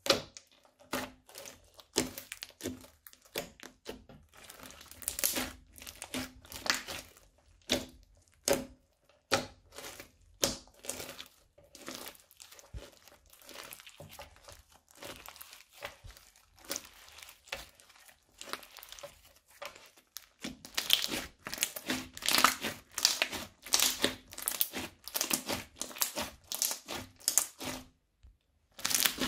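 Bead-studded crunchy slime being pressed, squeezed and stretched by hand, giving dense irregular crackling and crunching. It is sparser in the middle, gets busier and louder in the last third, and stops briefly just before the end.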